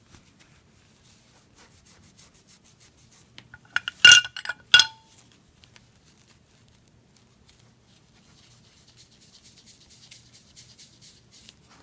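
Cloth rubbing beeswax polish into a small hardwood pipe in quick, faint strokes. About four seconds in comes a short cluster of loud, sharp clinks with a brief ring, as the pipe meets the ceramic tray. Near the end there is faint, fine rubbing of the cloth in the tub of beeswax polish.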